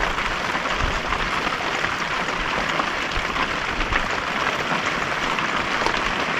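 Steady rain falling, an even, dense hiss.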